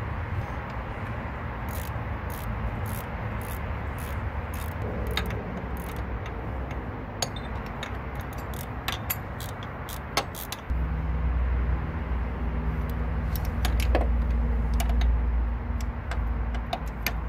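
Light metallic clicks and clinks, about two a second, as the water pump's 10 mm bolts are fitted and worked by hand on the engine block. About ten seconds in, a steady low hum starts and keeps on under a few more clicks.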